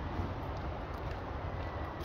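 A vehicle engine running with a steady low rumble, with faint scattered ticks over it.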